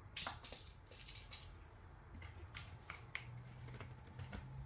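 A cat's claws catching and scratching: a scattered series of short, light scratchy clicks, the sharpest about a quarter-second in.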